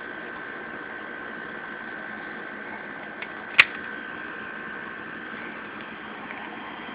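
Steady hum and hiss with a thin high tone, broken about three and a half seconds in by a single sharp click, with a fainter tick just before it.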